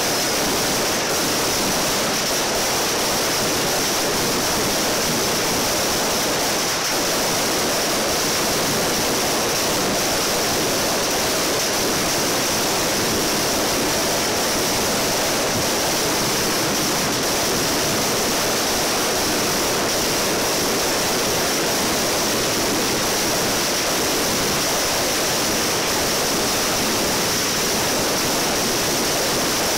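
A continuous barrage of hand-lit firecrackers going off so densely that the bangs merge into one steady, unbroken crackling noise.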